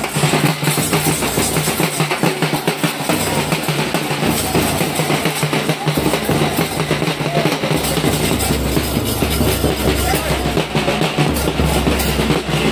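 Loud, drum-heavy music over a dense wash of noise.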